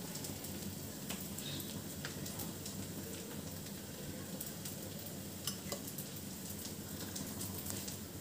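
Hot oil sizzling steadily with occasional light crackles, from shallow-frying potato patties (aloo pattice).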